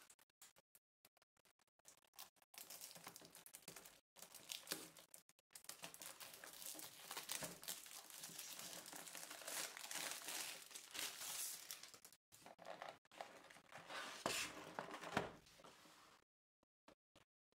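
Clear plastic shrink wrap being torn and peeled off a cardboard box, crinkling and crackling irregularly with a few sharper tearing sounds, then stopping near the end.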